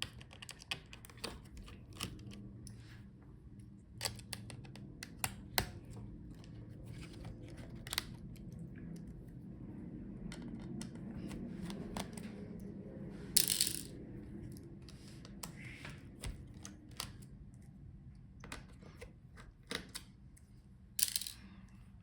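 Scattered small clicks and taps of a screwdriver and tiny screws against a laptop's frame as screws are taken out. The sharpest clicks come about a third and nine tenths of the way through.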